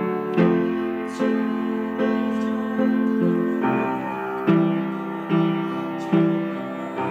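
Piano playing a slow, even melody over sustained chords, with a new note or chord struck about every 0.8 seconds.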